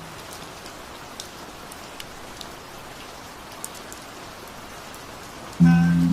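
Steady rain, an even hiss with a few sharp drop ticks here and there. Near the end, music comes in suddenly with sustained chords, louder than the rain.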